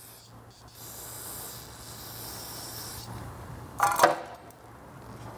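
Aerosol carburetor and choke cleaner spraying in a steady hiss for about two and a half seconds, cleaning out a scooter oil pump part. A brief, louder pitched sound follows about four seconds in.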